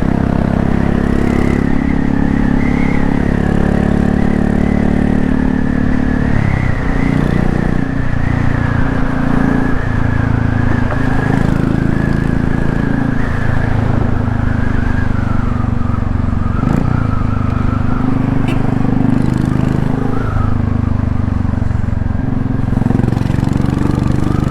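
Royal Enfield Classic 350's single-cylinder engine breathing through an aftermarket MTG sport exhaust tip, riding in traffic with the exhaust rumble rising and falling with throttle and gear changes.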